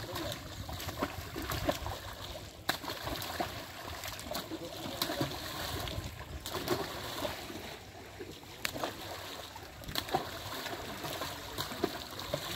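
Carp thrashing and splashing in shallow water trapped inside a net enclosure. Scattered sharp knocks come through now and then.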